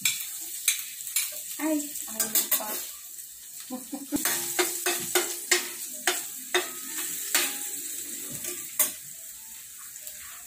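Chopped garlic sizzling in hot margarine and oil in a stainless steel pan, with a metal spoon stirring and clinking against the pan. The clinks thin out about seven seconds in, leaving a steady sizzle.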